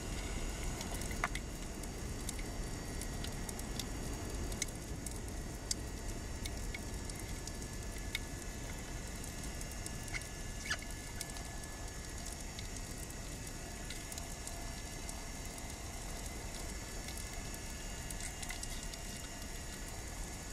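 Underwater ambience picked up by a camera in a housing: a steady low rush of water with scattered sharp clicks and crackles, about a dozen in all and none in the last few seconds.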